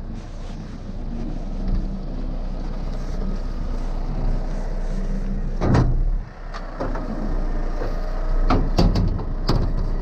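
Heavy diesel truck engine running steadily. A loud thump comes about six seconds in, followed by several sharp knocks or clanks.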